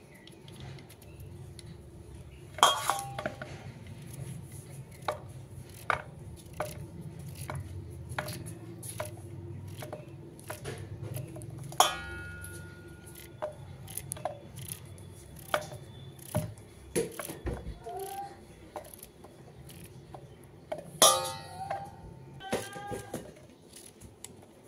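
A kitchen knife cutting chunks of pumpkin held in the hand over a stainless steel bowl: a run of sharp clicks as the blade snaps through and pieces drop into the bowl, with a few louder metallic clinks that ring on, about half a minute's work of chopping. A low steady hum lies underneath.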